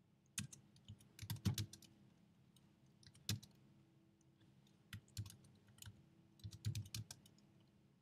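Computer keyboard being typed on in several short bursts of keystrokes with pauses between, the clicks clustering about a second in, around three seconds in, and again from about five to seven seconds in.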